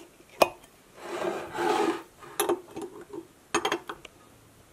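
A metal lid lifter prying vacuum-sealed lids off home-canned glass jars. There is a sharp click, then about a second of rasping metal scrape, then a few more short clicks.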